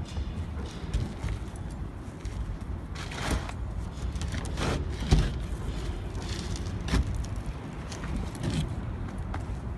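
A handful of short knocks and scrapes from handwork on stone coping over a steady low rumble.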